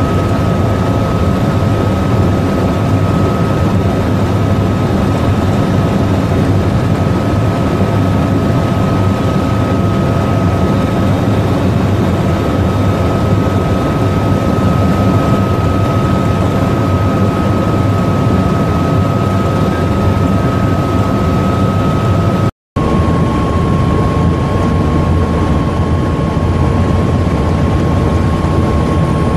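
AH-1Z Viper attack helicopter in flight, heard from inside the cockpit: a loud, steady mix of rotor and twin-turboshaft engine noise with a high steady whine on top. The sound drops out for a moment about 23 seconds in, and afterwards the whine sits slightly lower.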